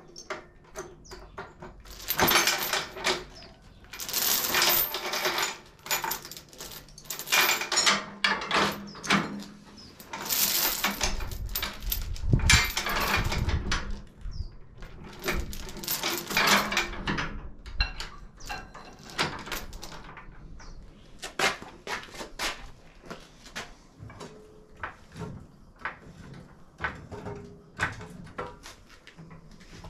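Steel chain rattling and clinking against metal as it is wrapped around a dune buggy's suspension and hooked to a floor jack, in dense bursts of clatter for the first half, then sparser single clinks and clicks.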